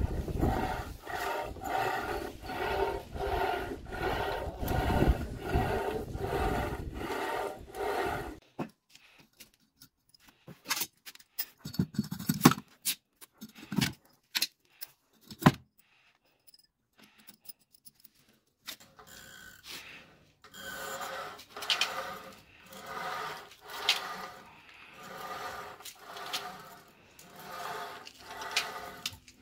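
Rope rasping and squeaking over the pulley of a homemade cable pulldown machine in a steady rhythm of strokes, one with each pull. The strokes stop for about ten seconds, with a few sharp knocks in the gap, then start again a little slower.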